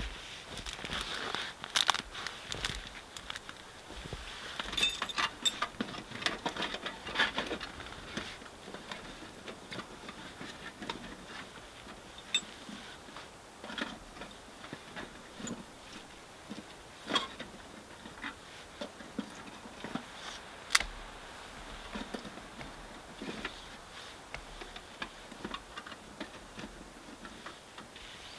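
Dry twigs snapping, clicking and rustling as kindling is handled and fed into a small wood stove: irregular sharp snaps, the loudest about two-thirds of the way through.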